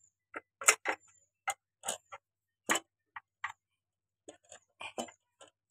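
Sharp metal clicks and clinks at irregular intervals, some fifteen of them, as the jammed hydraulic control lever shaft and its coil spring are worked by hand out of a Mahindra 395 DI tractor's hydraulic lift housing.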